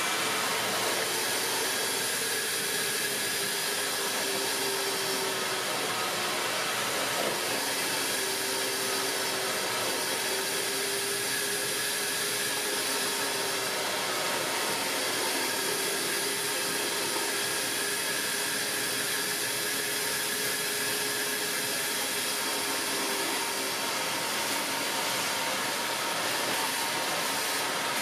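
Vacmaster VQ607SFD stainless steel wet/dry vacuum with a 3-peak-horsepower motor, running steadily while its hose sucks water up out of a bucket. The motor noise stays even throughout, with a faint hum that wavers slightly in pitch.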